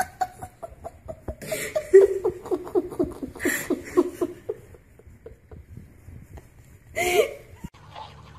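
A person laughing hard in quick repeated bursts, with loud gasping breaths about a second and a half in, three and a half seconds in, and again near the end, where the laugh rises to a squeal.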